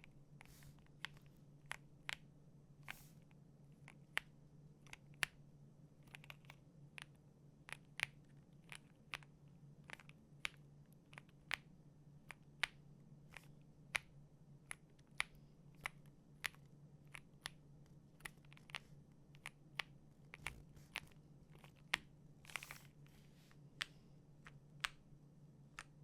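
Single keystrokes on a Wuque Studio Mammoth75 mechanical keyboard with all foams and stock Onion switches, pressed one at a time as sharp clicks about once or twice a second at uneven spacing, while the board is flex-tested. A faint low hum runs underneath.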